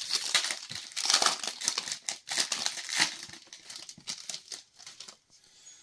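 Trading-card booster pack wrapper crinkling and tearing as it is opened by hand, a dense rustle of crackles that thins out after about four seconds.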